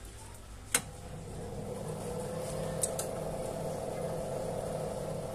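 A rack power amplifier switched on with a click, then a steady hum and whir that swells over about a second and holds as it powers up. Two light ticks come near the middle.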